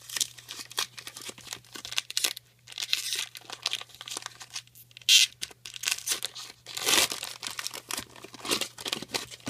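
Foil trading card pack wrapper being torn open and peeled back by hand: a run of crackling tears and crinkles, loudest about five seconds in and again near seven seconds.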